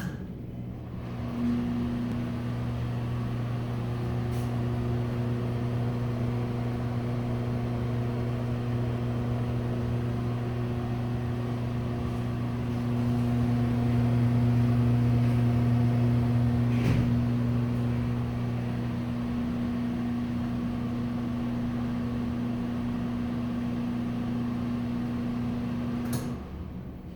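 Broan exhaust fan running with a strong, steady electrical hum. It starts about a second in, grows a little louder in the middle, and cuts off sharply near the end.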